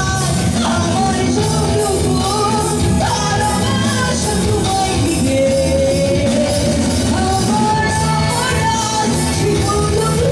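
A woman singing a Bangla rock song into a microphone over a live band with electric guitar and keyboard.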